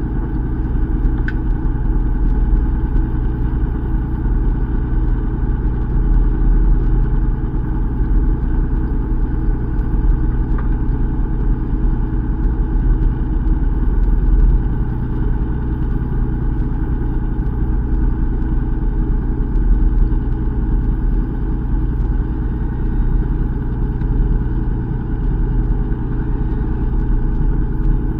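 Fishing boat's engine running at low speed with a steady, even hum.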